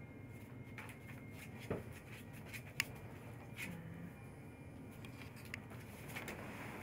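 Faint rustling and scattered light clicks of wolf pups' paws moving about on newspaper spread on the floor.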